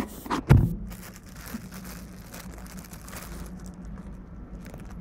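Clear plastic bag crinkling and rustling as it is handled right at the microphone, with a couple of loud handling knocks in the first half-second.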